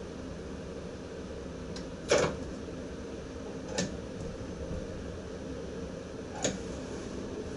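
Steady hum inside the cab of an NS ICM electric multiple unit, broken by three sharp clicks: the loudest about two seconds in, another near four seconds and a third past six seconds.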